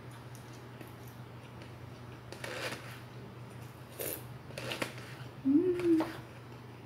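Eating sounds: a spoon clicking and scraping in a plastic food container, with chewing. About five and a half seconds in comes a short hummed "mm", the loudest sound, with a click right after it; a steady low hum runs underneath.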